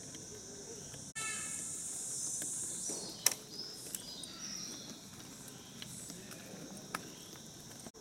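Steady high-pitched insect chorus, louder for about two seconds after the first second, with a few sharp taps, the loudest a little over three seconds in.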